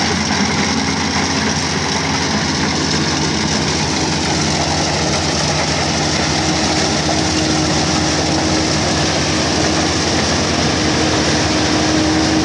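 Kubota DC-35 combine harvester's diesel engine running steadily, with a steady whining tone that grows a little stronger near the end.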